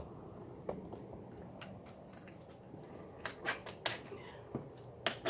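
Small sharp clicks and crinkles of fingers working the red plastic backing film of double-sided tape from under a stainless steel bumper guard, scattered, with a quick run of several clicks about three to four seconds in.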